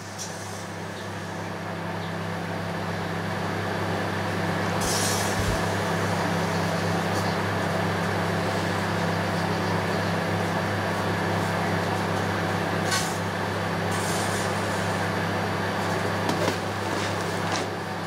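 Panasonic microwave oven running: a steady mains hum from its high-voltage transformer with fan noise. A few short crackles come about 5 and 13 seconds in as the line-filter circuit board burns inside.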